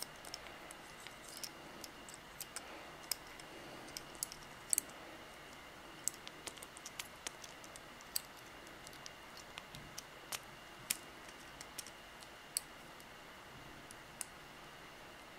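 Small plastic and metal parts clicking and tapping in the fingers as a Peco PL-15 micro-switch mounting plate and its switches are fitted back onto a PL-10E point motor. The clicks are light and irregular, a few every second or two.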